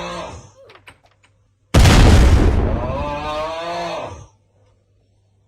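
A person snoring. The end of one snore fades in the first half-second. About two seconds in, a loud snore starts abruptly, rough and noisy at first, then settles into a steadier buzzing tone, and stops after about two and a half seconds.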